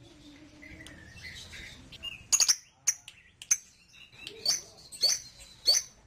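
Birds chirping: after a soft opening, a string of short, sharp, high chirps, each dropping in pitch, about half a second to a second apart.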